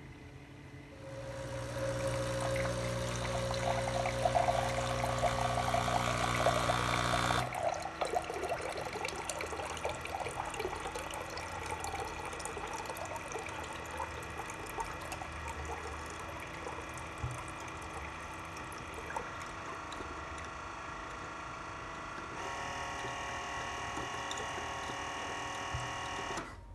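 Keurig Kold soda maker running its rinse cycle: the machine hums and water pours into a glass. The hum is loudest for the first several seconds, the pouring then runs on steadily, and the cycle cuts off suddenly near the end.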